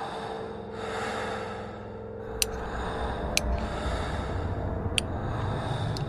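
Someone eating instant noodles from a steel bowl: steady breathy slurping, with three sharp clinks of the utensil against the bowl.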